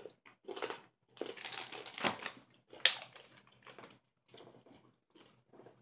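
Hard candy being crunched between the teeth, a series of crisp crunches, with one sharp crack just under three seconds in as the loudest sound. After that come fainter short crackles of a plastic water bottle being handled as its cap is twisted open.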